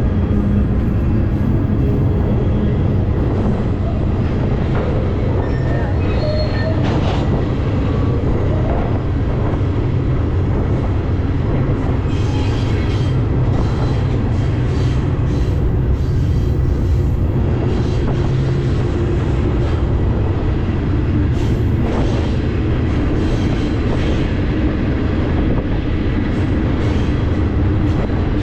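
Union Pacific freight train rolling, heard from aboard a car: a loud, steady low rumble with scattered short squeals and clanks on top.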